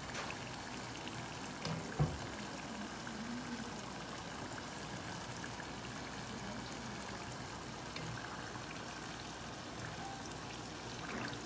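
Potato smiley fries deep-frying in hot oil in a pan: a steady sizzle, with a sharp knock about two seconds in.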